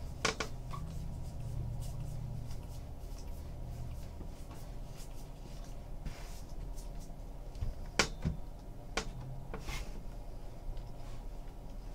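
Baseball trading cards handled and flipped one at a time by hand, with faint rustling and a few sharp clicks or taps, the loudest about eight seconds in, over a low steady hum.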